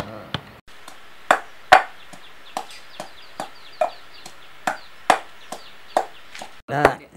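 Wooden pestle pounding sliced galangal in a mortar, crushing it to a paste: a steady run of dull thuds, about two to three a second, with a brief pause about a second in.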